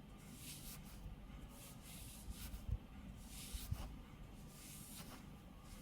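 A comb drawn through hair close to the microphone in repeated strokes, each a soft hissing swish, with a couple of soft low thumps about a third and two thirds of the way in.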